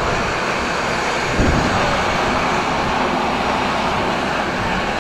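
Steady rush of wind buffeting the microphone over motorcycle engine and road noise while riding in traffic, with one low thump about a second and a half in.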